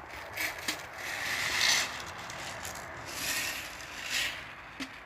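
Scraping and rubbing handling noise from the airsoft pistol's magazine being reloaded, in several bursts, with a couple of small clicks, one just under a second in and one near the end.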